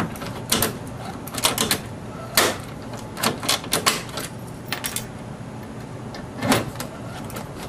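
Hand rivet gun working aircraft rivets through a bracket into a kayak hull: irregular sharp clacks from the tool's squeezing strokes, some single and some in quick runs of several.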